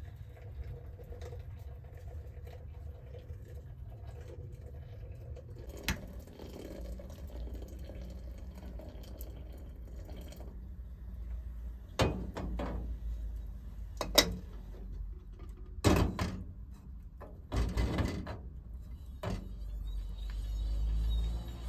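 Water pouring from an aluminium kettle into a Turkish teapot, a steady filling trickle for about the first ten seconds. Then a few sharp metal clanks as the aluminium teapots and lid are set down and stacked on the stove top.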